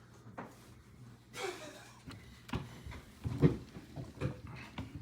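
A series of knocks and thumps from objects being handled, the loudest about three and a half seconds in, after a short rustle about a second and a half in.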